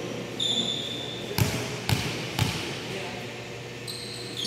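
A basketball being dribbled, three bounces about half a second apart near the middle, with high-pitched squeaks of sneakers on the court.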